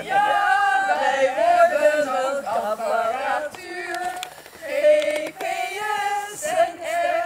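A group of women singing together unaccompanied, several voices on held, sung notes.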